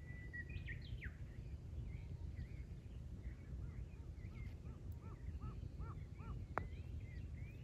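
Wild birds chirping and singing over a low steady rumble, with a run of about six short, evenly repeated arched notes in the middle. A single sharp click about six and a half seconds in.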